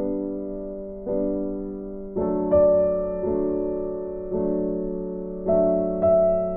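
Slow, gentle background piano music: single notes and soft chords struck about once a second and left to ring out.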